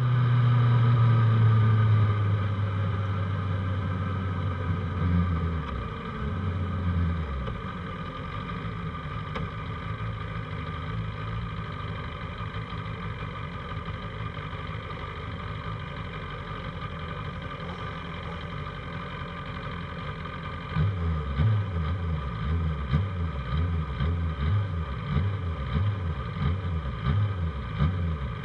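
Engines of race motorcycles running on the starting grid, led by the HRC Honda Steelie 600 carrying the microphone. A loud engine note in the first few seconds drops away about six to seven seconds in; from about twenty-one seconds in the engine sound pulses about three times a second.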